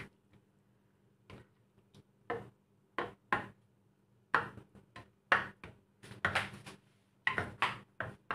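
Spoon knocking and scraping against a stainless steel pan while stirring a simmering chicken curry, in a string of irregular sharp taps.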